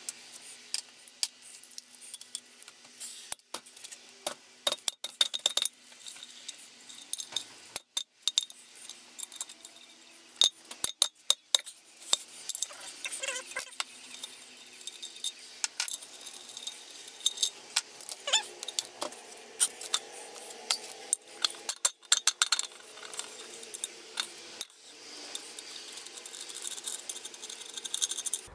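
Hand socket ratchet and steel tools clicking and clinking on the casing bolts of a Peugeot BE4 gearbox as they are undone: irregular sharp metallic clicks, in close runs at times.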